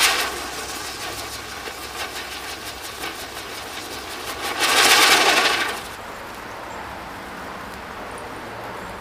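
Flower basket birdcage firework burning, with a fast run of crackling and hissing. A louder surge of hiss comes about four and a half seconds in and dies away just before six seconds.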